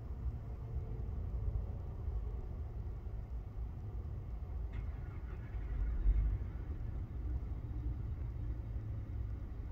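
Low, steady rumble of street traffic, swelling briefly about six seconds in, with a faint click shortly before.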